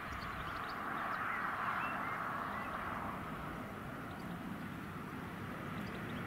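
A Class 66 diesel-electric freight locomotive hauling a container train, running as it approaches from a distance, a steady engine-and-rail noise that slowly grows louder. Small birds chirp over it now and then.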